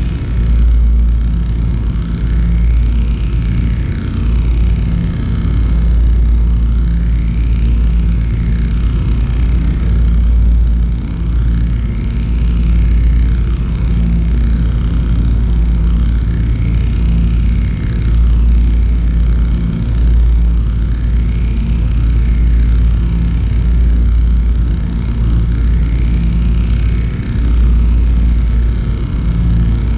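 Electronic soundscape of an interactive installation: a deep, steady rumbling drone, with fainter higher tones sweeping up and down every few seconds.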